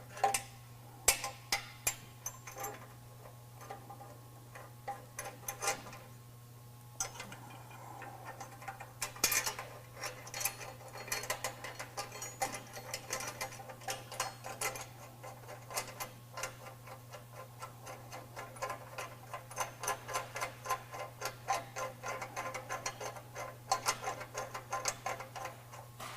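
Hand ratchet wrench clicking in irregular runs, faster and more regular in the second half, as nuts are run down to fasten a bumper bracket to the truck frame. A steady low hum sits underneath.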